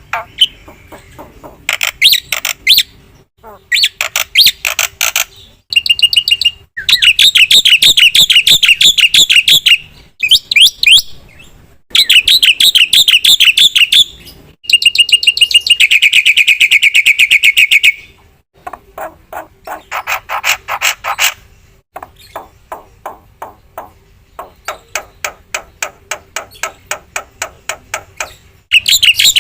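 Black-winged starling (jalak putih) singing loudly: a varied run of phrases, each a rapid string of repeated sharp notes lasting one to four seconds, separated by short pauses.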